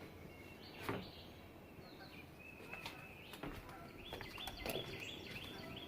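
Birds chirping faintly, with a run of short, quickly repeated high chirps in the second half. A few faint knocks are heard among them.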